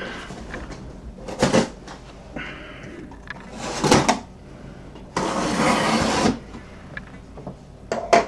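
Cardboard shipping box being slit open along its taped seam and handled: scraping and tearing of packing tape and cardboard, a few sharp knocks against the box, and one longer ripping sound of about a second a little past the middle.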